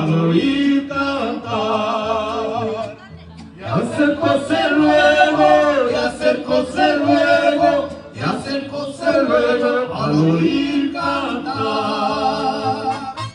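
Mariachi band playing, with several male voices singing together in wavering vibrato over violins and low bass notes. The phrases break briefly about three seconds and eight seconds in.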